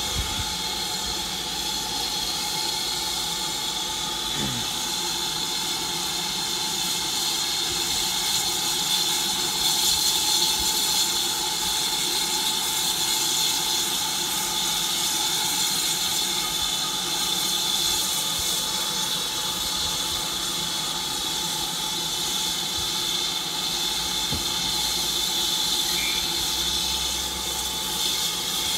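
Steam locomotive standing at the platform with steam escaping in a steady, continuous hiss.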